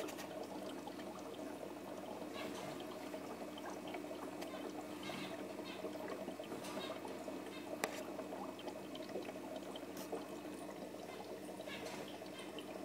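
Faint water trickling and bubbling from a fry tank's sponge filter over a steady low hum, with a few faint ticks.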